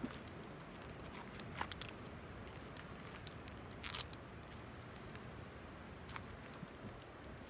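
Wood campfire crackling, with scattered sharp pops, the loudest about four seconds in.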